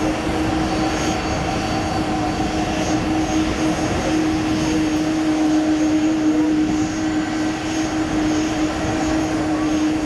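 Airbus A330 airliner's twin jet engines running steadily at low power as it taxis, a constant whine over a broad rush of noise, with no rise in pitch.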